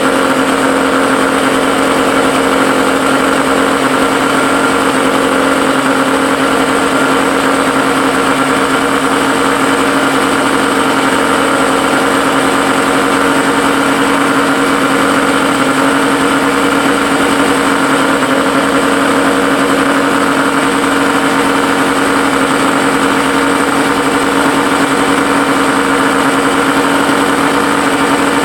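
Suzuki SS20 Cervo's 539 cc two-stroke three-cylinder engine running steadily at a constant speed, with an exhaust leak.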